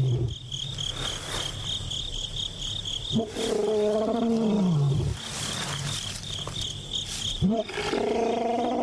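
Male lion roaring: the end of one call at the start, then two long calls, each rising and then falling in pitch. These are a lone male's contact roars, calling for an absent companion. Crickets chirp steadily underneath.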